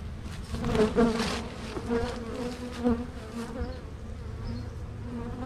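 Honey bees buzzing over an open Langstroth hive box crowded with bees, several flying close past so the buzz wavers in pitch and swells, loudest about a second in.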